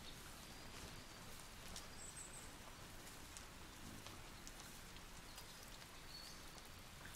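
Near silence: faint room tone, a low hiss with scattered faint ticks.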